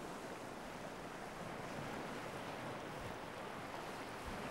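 Soft, steady rushing noise of wind and surf from the open sea.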